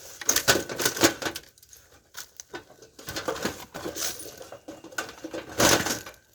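Casing and internal parts of a plasma TV being pulled apart by hand: a busy run of snaps, clicks and rattles, loudest near the start and again near the end.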